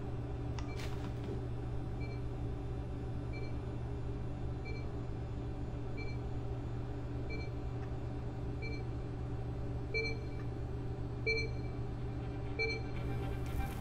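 Short electronic beep repeating steadily about every 1.3 seconds over a constant low hum; the last few beeps, from about ten seconds in, are louder.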